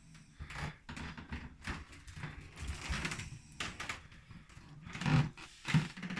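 Snoring: a string of rough, irregular breaths, each a second or less apart.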